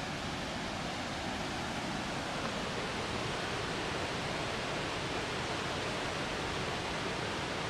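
Steady, even rush of a waterfall heard from above, with no changes or separate events.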